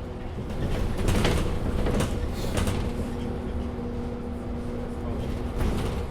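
Inside a MAN Lion's City A37 city bus under way: a steady engine and drive hum, with louder clattering knocks and rattles about a second in, again over the next two seconds, and once more near the end.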